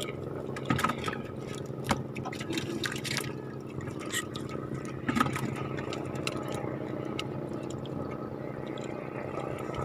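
Water lapping and sloshing against the hull of a small wooden outrigger boat, with a few short sharp knocks.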